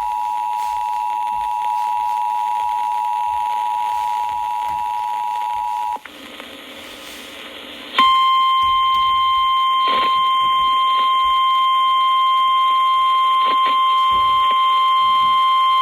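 Emergency Alert System two-tone attention signal, two tones (853 and 960 Hz) sounding together, held steady for about six seconds. After a couple of seconds of faint hiss, the louder single 1050 Hz NOAA Weather Radio warning alarm tone starts about eight seconds in and holds steady. These tones signal that a warning message is about to be broadcast.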